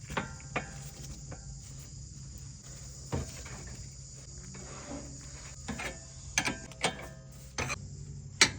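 Scattered sharp clicks and knocks of hand tools on a car's suspension parts during ball joint boot work, about eight at irregular intervals, over a steady high hiss.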